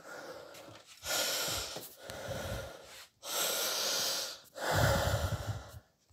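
A man breathing heavily: about five loud, noisy breaths in and out, each roughly a second long, with short pauses between them.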